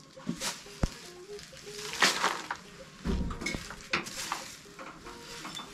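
Hands scooping and scraping dry dirt and grit off an earth floor into a plastic basin: a series of gritty, rustling scrapes with a duller thud about three seconds in. Faint background music plays underneath.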